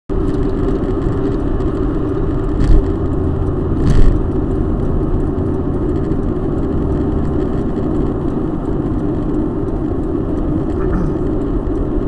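Steady road and engine drone heard inside a car cabin at highway speed, with two short thumps about three seconds in, a second apart.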